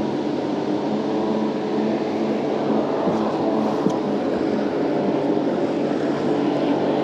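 A boat motor running steadily, a low, even engine hum.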